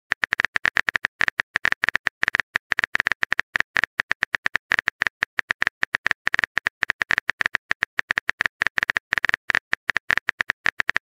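Simulated phone-keyboard typing sound effect from a texting-story app: a rapid, unbroken stream of short clicks, about ten a second, one per letter as a message is typed out.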